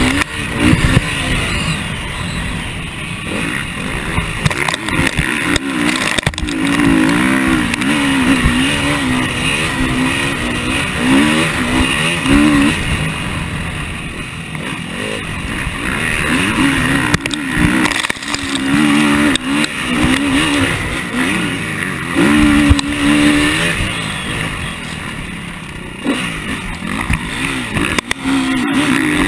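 KTM motocross bike's engine revving up and down again and again as it is ridden hard through the gears, with wind noise on the bike-mounted microphone and occasional sharp knocks.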